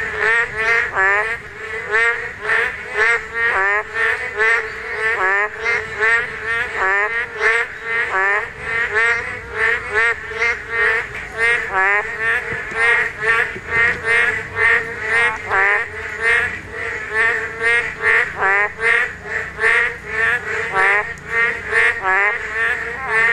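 A breeding chorus of boreal digging frogs (Korean narrow-mouthed toads): many males calling at once, short nasal croaks repeating several times a second and overlapping without a break.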